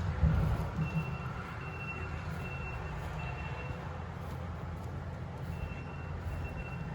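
Vehicle backup alarm beeping in a steady series of single-pitched beeps, pausing briefly in the middle, over a low engine-like rumble with a bump near the start.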